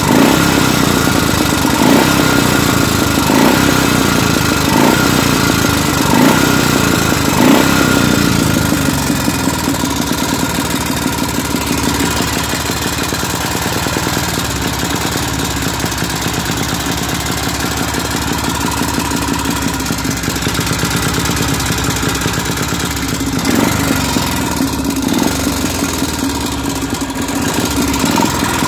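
Motorcycle engine running, with short throttle blips about every second and a half at first, then settling into a steady idle, with one more blip near the end.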